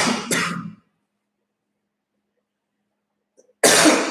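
A person coughing: a double cough at the start and another double cough near the end, with silence in between.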